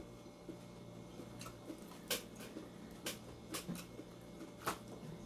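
A person chewing food with a few short, soft mouth clicks and smacks, over a steady low hum.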